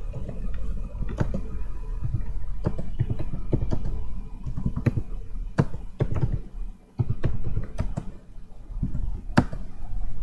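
Keystrokes on a computer keyboard, typed slowly one key at a time: irregular sharp clicks about one or two a second. A steady low rumble runs underneath.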